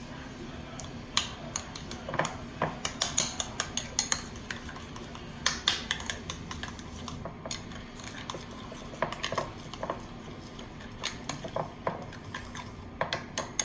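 A spoon stirring a mayonnaise, sour cream and ketchup sauce in a bowl, clinking against the bowl in irregular clusters of short clicks.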